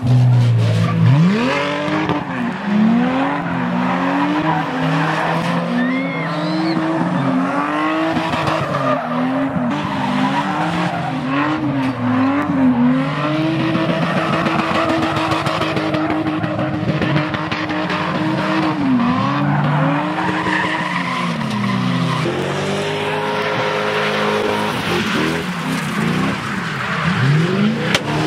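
Cars' engines revving hard while spinning donuts, with tyres squealing and screeching on the asphalt. The revs rise and fall about once a second for the first half, hold high and steady for several seconds, drop, then climb again near the end.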